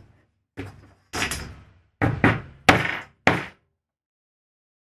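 Hammer striking a metal setting tool held on leather to fasten hardware: about six uneven blows in three seconds, each a sharp knock with a short ring.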